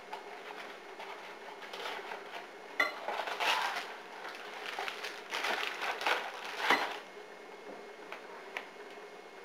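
Dishes and kitchen utensils clinking and clattering in scattered bursts, with a sharp click about three seconds in.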